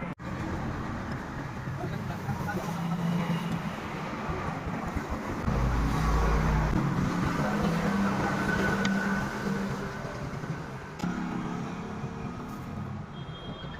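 Motor vehicle engine noise running steadily, with a deep low rumble swelling for about a second midway.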